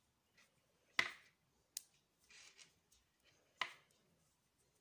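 Three sharp little clicks and a soft rustle from hands tying a knot in bracelet threads at a metal jump ring.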